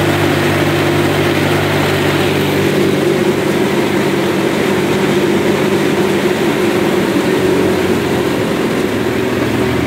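Homemade jet boat's engine running steadily at speed, with the rush of the water jet and wake under it.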